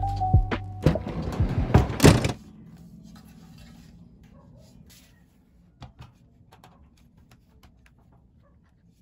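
Background music with a few sharp knocks, which stops about two seconds in. After it come faint clicks and knocks from a metal Lention L5 laptop stand as hands adjust its arms and set a laptop on it.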